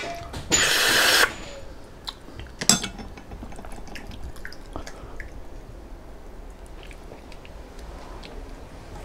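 Eating spicy bone marrow: one loud slurp, a little under a second long, starting about half a second in, then a sharp click, then soft, wet chewing for the rest.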